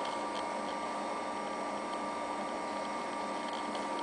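A mini-ITX PC built into a Macintosh SE case running as it boots: a steady fan whir with a faint steady whine, and a few faint hard-drive ticks.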